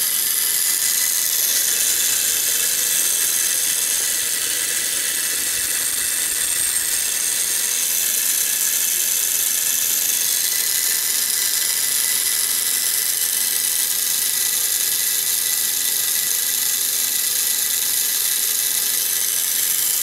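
Small electric motor and computer cooling fan of a homemade Peltier thermoelectric generator running, a steady high whir with a wavering whine.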